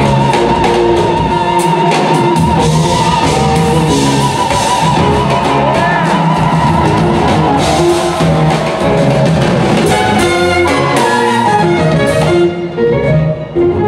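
Live jazz-fusion band playing loud and dense: horns, guitars, keyboards and drums together, with a high held note that wavers through the first half. The music thins out briefly near the end.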